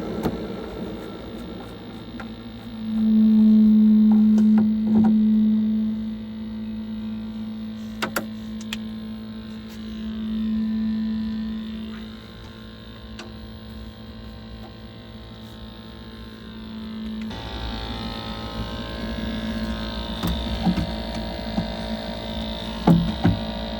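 Glow-worm Flexicom gas boiler running fired in service mode with its case off: a steady low humming tone from the fan and burner, loudest a few seconds in. About two-thirds of the way through the tone gives way to a broader, lower rumble. There are a few light clicks.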